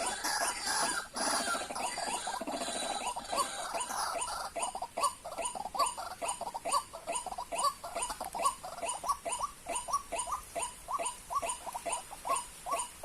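White-breasted waterhens calling. For about four seconds the short calls overlap densely, then they settle into a rapid, regular series of about three calls a second.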